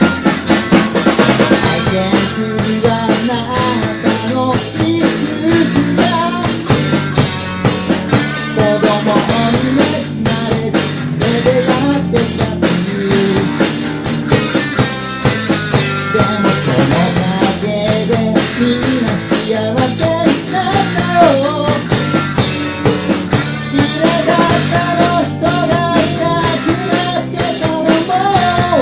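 A rock band playing, with a full drum kit keeping a steady beat under guitars. A wavering melody line runs over the top.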